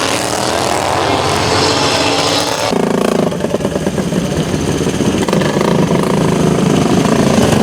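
Racing lawn mower engines running hard on the track, loud and continuous, with a stronger, lower engine note taking over about three seconds in.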